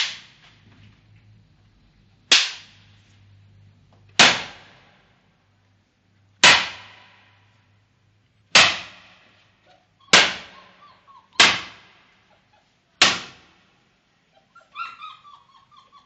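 Eight sharp bangs, one every one and a half to two and a half seconds, each dying away over about half a second, made as a noise-reaction test for German Shepherd puppies. Near the end come a few short, higher-pitched sounds, likely the puppies whining or yipping.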